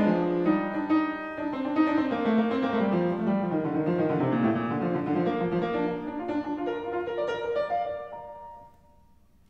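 Upright piano playing the closing bars of a prelude, with chords and running notes, ending on a last note that dies away about eight and a half seconds in.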